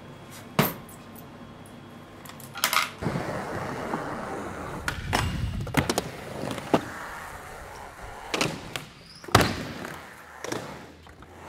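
A few sharp isolated clicks, then from about three seconds in a skateboard rolling over smooth concrete with a steady wheel rumble. Several sharp clacks of the board striking the ground break in, the loudest about nine seconds in.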